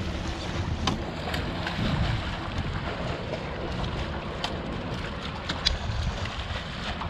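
Hooked spring Chinook salmon thrashing and splashing at the surface beside the boat as it is netted, with a few sharp splashes standing out. Wind rumbles on the microphone throughout.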